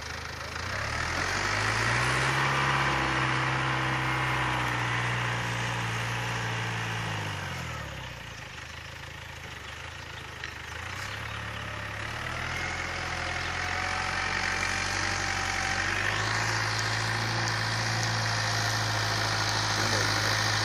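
Small diesel farm tractor's engine running under load as it pulls a plough across a field. Its pitch rises about a second in, then drops and fades around the middle as the tractor moves off, before it picks up and grows louder again.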